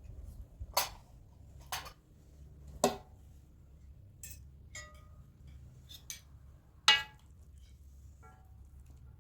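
Dishes and cutlery clinking: about seven sharp, separate clinks of metal or glass against crockery, a few with a brief ringing tone after them.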